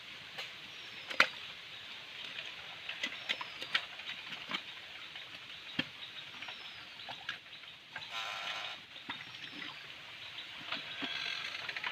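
Hands working in wet mud and ditch water: irregular squelches, clicks and small splashes, with a few short falling bird chirps.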